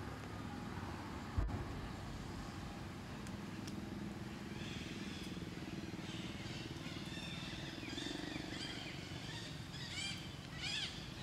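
Steady low drone of an engine running in the background, with one sharp knock about a second and a half in. High chirping calls start about four and a half seconds in and grow more frequent near the end.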